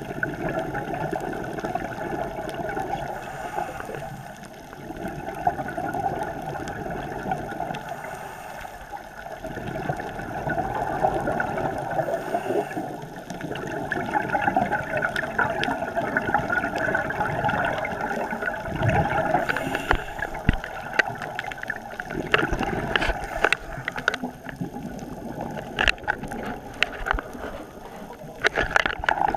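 Underwater sound of a scuba diver's regulator: bubbles gurgling out in surges that rise and fall with each breath, muffled through the camera housing. Sharp clicks sound now and then in the second half.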